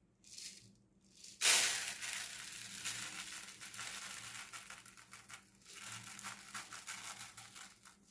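Dense crinkling and rustling made of many fine crackles, starting sharply about a second and a half in and running on for several seconds.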